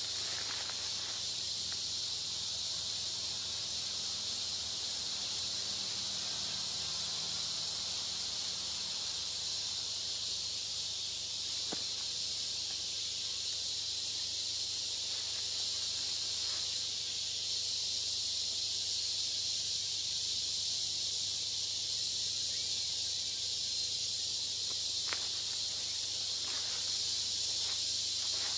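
Steady high-pitched hiss of a forest insect chorus, with a couple of faint clicks.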